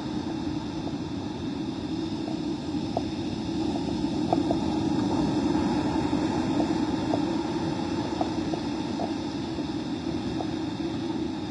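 Steady rush of wind and surf on a storm-blown beach, the wind buffeting the microphone, with a few faint ticks scattered through it.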